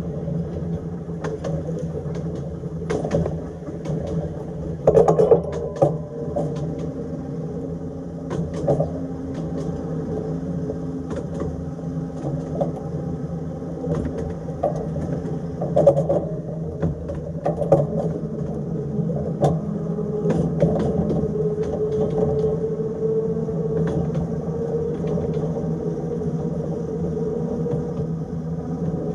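Electric tram running along its track: a steady rumble and motor hum, with short knocks and clicks from the running gear every few seconds.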